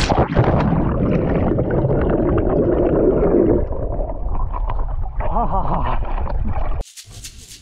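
Water sloshing and gurgling close to the microphone, as when swimming. It cuts off suddenly near the end, when music with a shaker rhythm begins.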